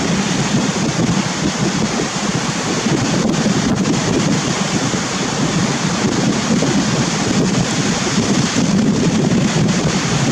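Strong wind buffeting the microphone in a steady, fluctuating rumble, over the wash of sea surf.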